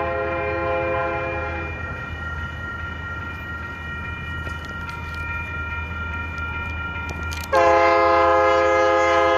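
Diesel locomotive air horn sounding a multi-note chord: one blast fading out about two seconds in, then a louder, longer blast starting near the end. A grade-crossing warning bell rings steadily underneath, over a low steady rumble.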